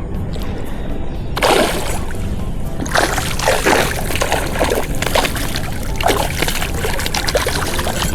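Background music with water splashing in repeated bursts, starting about a second and a half in, as a hooked fish thrashes at the surface.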